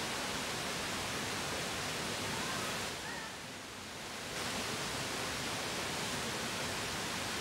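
Steady rush of falling water from a waterfall, briefly quieter and duller about three to four seconds in.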